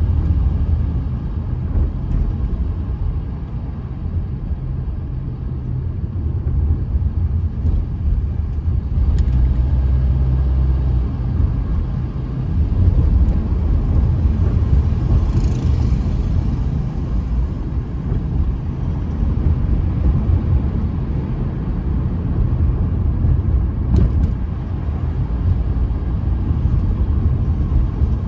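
Steady low rumble of a car's tyres and engine heard from inside the cabin while driving, with a couple of faint clicks.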